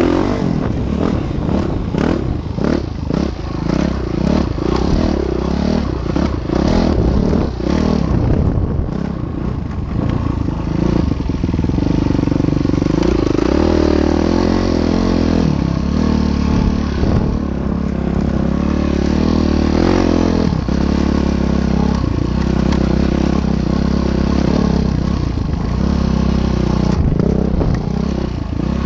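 Train crossing a bridge: the wheels clatter and knock over the rails, and from about halfway through there is a steady low engine drone from a locomotive.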